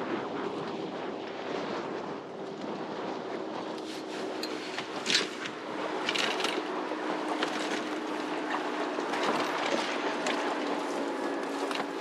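Strong wind and choppy water around a small fishing boat, with a steady low hum throughout and a few short splashes or knocks about five and six seconds in as a fish is brought aboard.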